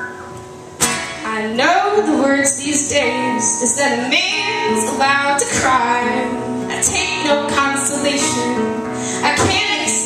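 Live song: women singing over a strummed acoustic guitar. The sound is quieter for about the first second, then the voices come in.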